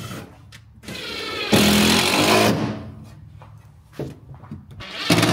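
Cordless drill driving screws into an OSB platform: the motor whines up about a second in and runs loudly under load for about a second, then runs again near the end.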